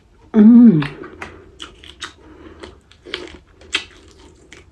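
A brief vocal sound falling in pitch, then a run of small sharp clicks and crackles, about two or three a second, as boiled seafood shells are cut, cracked and peeled and eaten close to the microphone.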